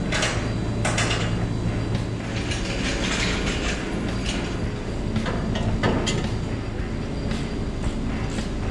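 Steady low hum under scattered metallic clanks and rattles of hand tools being worked on an engine.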